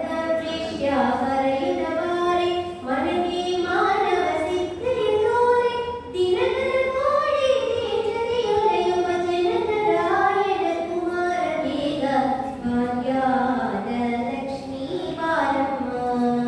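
A woman singing a slow melody through a microphone, with long held notes that glide from one pitch to the next.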